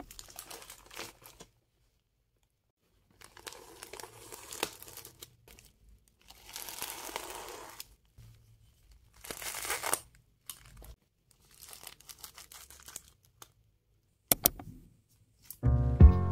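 A plastic courier mailer bag being slit with a small cutter and torn open, in repeated bursts of tearing and crinkling plastic with short pauses between. Music starts right at the end.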